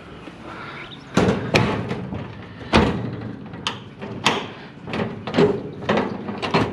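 Doors of a sheet-steel storage cabinet being pushed shut and latched: a run of sharp metal bangs and clanks, about eight or nine, the loudest in the first three seconds.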